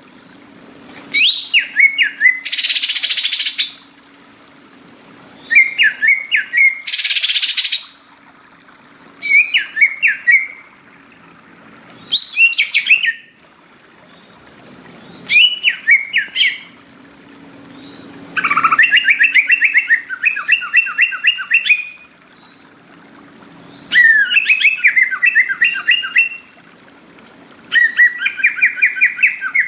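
Green leafbird (cucak ijo) singing loudly in short bursts of rapid, chattering whistled notes every few seconds, with two harsh hissing bursts early on and longer runs of song toward the end.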